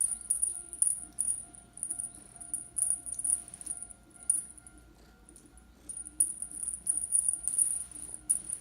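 A small toy rattling and jingling in quick, irregular high-pitched bursts, as a kitten bats and plays with it, with a quieter stretch in the middle. A faint steady hum underneath.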